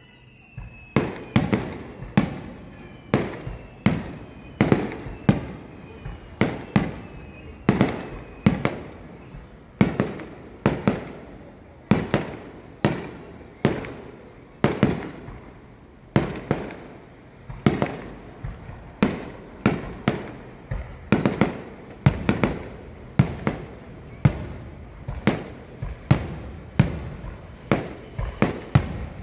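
Aerial firework shells bursting in quick succession: a sharp bang about once a second, each trailing off in a rumbling echo. In the first few seconds faint whistles fall in pitch under the bangs.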